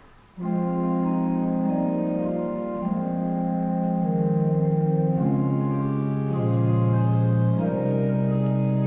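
Church organ playing sustained chords, starting about half a second in, with a slowly moving bass line under held upper notes: the introduction to the sung psalm.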